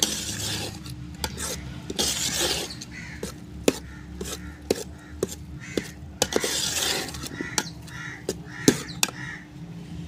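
Metal slotted spoon scraping and knocking against a steel pot as milk cooked down to dry crumbs is stirred with sugar. A crow caws several times in the second half.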